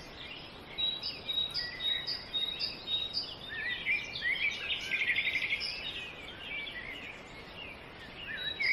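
Several small birds chirping and singing over a steady hiss of background noise: short high whistled notes, quick rising chirps, and a fast trill about five seconds in.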